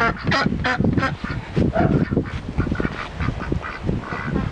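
A flock of domestic ducks quacking over and over, many short calls overlapping, over a low rumble.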